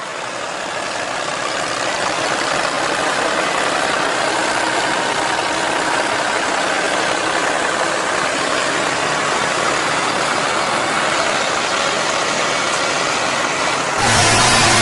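Tractor engine running steadily under a heavy pulling load, heard as an even, rushing noise with little low end. About fourteen seconds in it cuts to a louder, deeper engine drone with a steady pitch.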